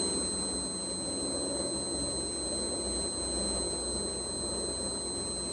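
Steady background noise: a low hum and hiss with faint, constant high-pitched whine tones, typical of room tone and electronic noise picked up by a phone microphone.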